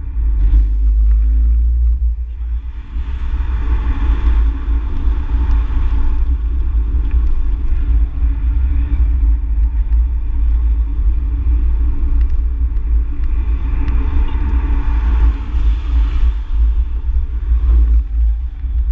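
Race car's cabin at speed on a track: a heavy, constant low rumble with engine and road noise that swells twice, a few seconds in and again about three-quarters of the way through.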